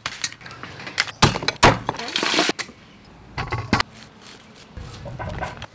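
Kitchen handling sounds: a run of sharp knocks, crackles and scrapes as hard mud crab shells are moved around in a stainless steel colander, with softer crunchy cutting of corn kernels near the end.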